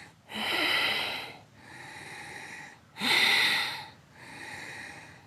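Ujjayi breathing: slow breaths drawn and let out through a narrowed throat, each a soft hiss about a second long. Quieter and louder breaths alternate, giving about two full breath cycles.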